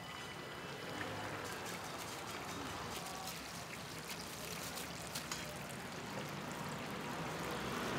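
Oil sizzling and crackling steadily in a deep fryer, with faint market chatter under it.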